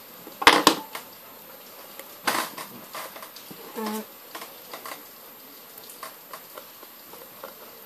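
Thin metal pry tool clicking and scraping against a phone display's frame as it is worked along the edge, with the two sharpest clicks about half a second in, a burst of taps about two seconds in, then lighter scattered ticks.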